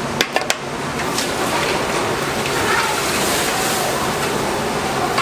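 Cut crab pieces tipped from a metal colander into a large kettle of boiling broth, splashing into the bubbling liquid, over the steady noise of the boil. A few sharp clicks come within the first half second.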